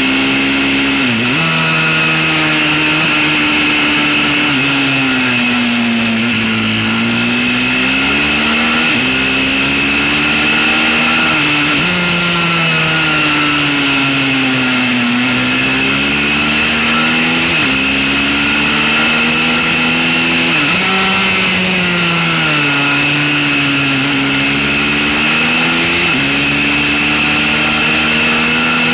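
Pit bike's small single-cylinder engine at full riding speed, its pitch climbing and falling again and again as the rider accelerates, shifts and slows for corners, with several sudden breaks in pitch. A steady high whine runs underneath throughout.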